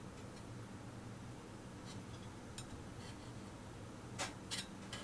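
A few faint, light clicks and taps from handling the resin printer's build plate and the washing tank, the two loudest about four seconds in, over a low steady hum.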